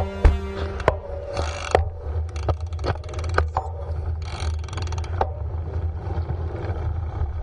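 A bicycle is ridden on a road, heard through a handlebar-mounted camera in its housing. There is a constant low rumble of wind and road, with irregular clicks, knocks and rattles from the bike and housing, and a steady hum in the first second.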